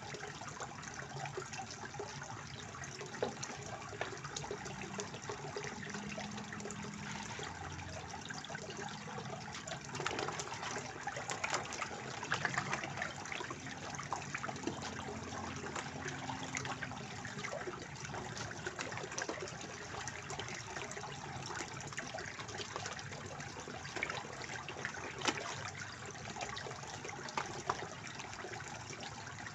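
Water from a pond fountain splashing and trickling steadily into a small koi pond, with now and then a sharper splash.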